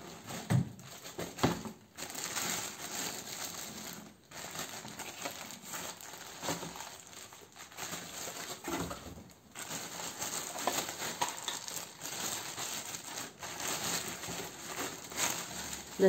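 Plastic packaging crinkling and rustling as a blender pitcher is unwrapped, with a couple of sharp knocks in the first two seconds and scattered clicks after.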